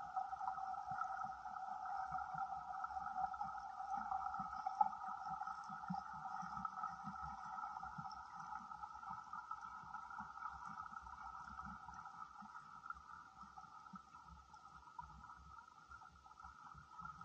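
Underwater ambience picked up by a submerged camera: a steady mid-pitched hum with faint crackling beneath it, growing a little softer in the second half.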